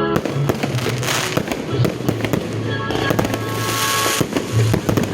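Fireworks crackling and popping in quick, dense succession, with two longer hissing bursts, over music with steady held notes.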